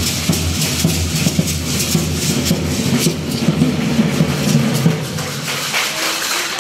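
Matachines dance accompaniment: a large drum beating a steady rhythm under the dense, rhythmic rattling of the dancers' hand rattles (sonajas). The drum's low pulse weakens near the end.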